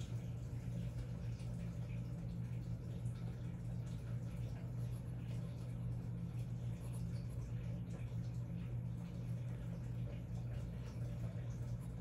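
Faint, irregular scratching of a Montblanc 1246 fountain pen nib moving across paper, over a steady low hum.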